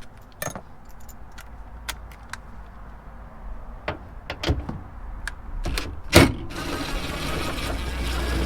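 Scattered clicks and knocks of tools and plastic interior trim being handled. About six and a half seconds in, a small power tool's motor starts and runs steadily for about three seconds, the loudest sound here.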